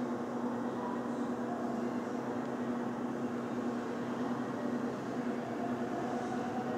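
A steady mechanical hum, one even tone, over a constant hiss, like an indoor ventilation or air-conditioning unit.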